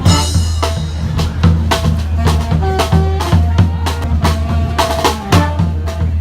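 Street brass band playing a drum-heavy passage: bass drum and snare drive a steady beat under a low bass line, with short horn notes over the top.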